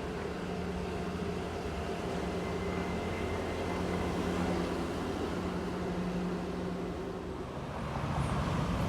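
Engine of a motor vehicle running, a steady hum that grows a little louder midway and eases off near the end.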